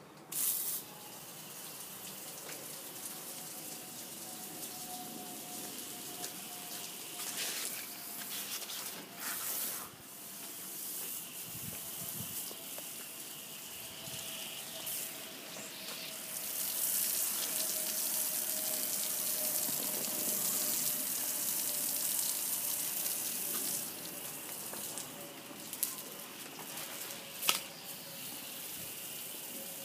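Steady hiss of water, louder for a while in the middle, with a few short knocks of the phone being handled. A faint thin tone slides slowly lower beneath it.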